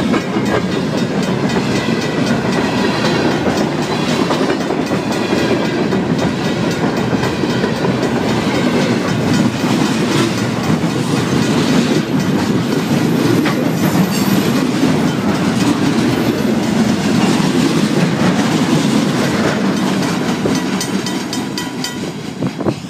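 Freight cars, covered hoppers and refrigerator boxcars, rolling past at close range with the wheels clacking over the rail joints. The sound fades over the last couple of seconds as the tail of the train moves away.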